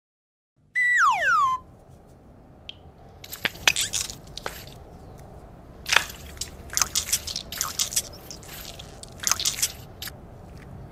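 A short cartoon sound effect of a falling whistle, then gel-filled mesh stress balls squelching and crackling in irregular bursts as a hand squeezes them.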